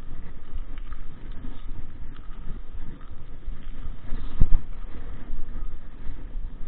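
Mountain bike rattling over a rough, stony dirt trail, with a low rumble of wind on the microphone and one sharp knock about four and a half seconds in.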